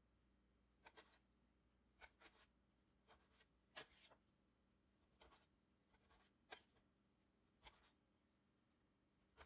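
Faint, irregular clicks and taps of a kitchen knife blade striking a glass baking dish as raw chicken breast is cut into cubes on it, the loudest about four seconds in.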